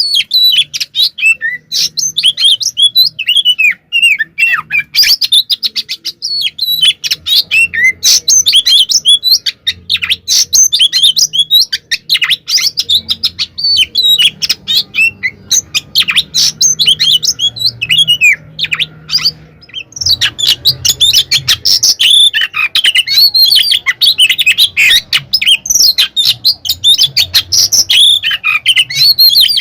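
Oriental magpie-robin (kacer) singing a rapid, nonstop stream of sharp chirps, sweeping whistles and clicking notes, with a brief lull about 19 seconds in. It is the fast, aggressive fighting song that keepers call 'tarung konslet'.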